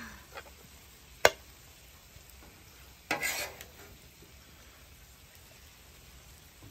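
Food sizzling faintly on a Blackstone flat-top griddle. There is one sharp tap about a second in and a brief scrape about three seconds in.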